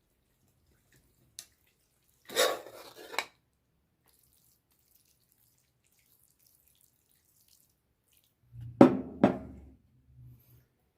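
Close-miked eating sounds of noodles and chicken: a short wet noisy burst about two seconds in, then two sharp clicks with a low thump near the end, with near silence between.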